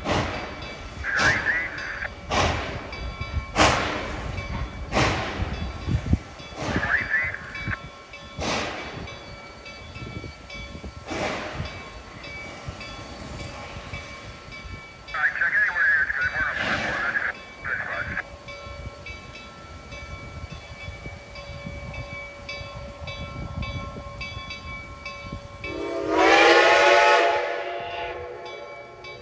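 Reading & Northern T-1 steam locomotive 2102 pulling away: heavy, widely spaced exhaust chuffs that come further apart and fade over the first dozen seconds, with short bursts of hissing steam. Near the end, a long loud blast on the steam whistle.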